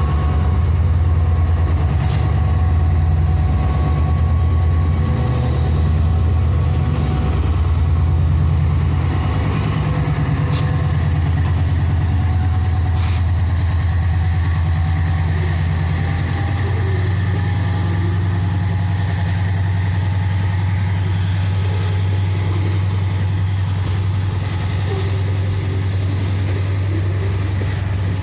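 CC 205 diesel-electric locomotive's engine running with a steady, heavy low drone; its note settles into a smoother, steadier pattern about sixteen seconds in.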